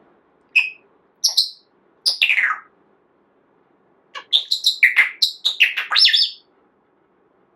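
Pet parrot chirping and whistling: a few short high calls in the first two and a half seconds, then a quick run of sharp chirps from about four to six and a half seconds.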